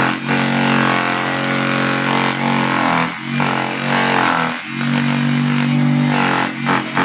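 Homemade wooden grass chopper driven by a 125-watt electric motor, running with a steady hum while grass stalks are fed into it and chopped. The sound dips and breaks up a few times, at about the start, three seconds in and four and a half seconds in, as the stalks go through the cutter.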